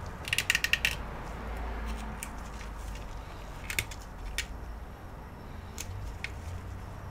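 Plastic housing of an ARRIS SURFboard SB8200 cable modem clicking and tapping as it is handled in gloved hands: a quick run of clicks about half a second in, then a few single clicks spread through the rest.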